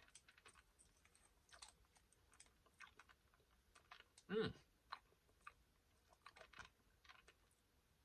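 Faint mouth sounds of a hard cough drop being sucked and moved around in the mouth, with scattered small clicks of the candy against the teeth. A short hum of the voice about four and a half seconds in.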